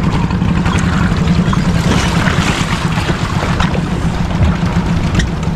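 Small boat engine running steadily, a constant low hum, with water noise over it.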